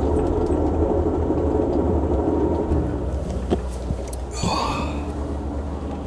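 Passenger train rolling along, heard from inside the carriage: a steady low rumble with faint scattered clicks and rattles, a little quieter after about three seconds. A brief swishing noise about four and a half seconds in.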